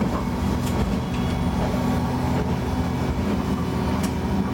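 Diesel railcar engine idling steadily while the train stands at a station, with a couple of faint clicks.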